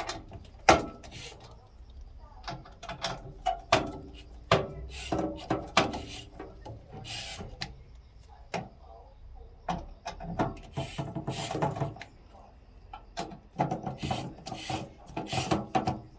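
Hands handling computer case parts and components: irregular clicks, knocks and short scraping rattles, busiest about ten seconds in and again near the end.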